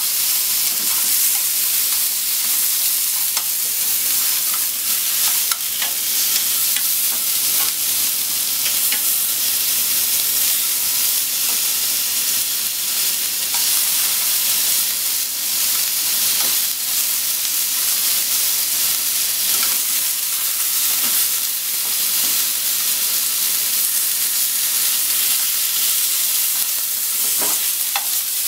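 Cubes of pork belly sizzling in a frying pan, a steady high hiss, with scattered light clicks as wooden chopsticks turn the pieces against the pan.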